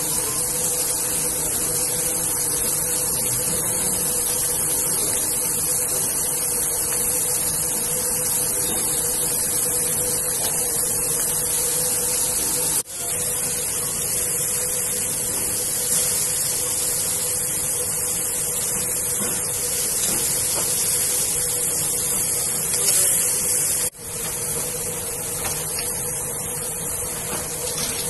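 Meat sizzling on a hot grill: a steady, loud hiss, broken by two brief sudden drops where the footage is cut, about halfway through and near the end.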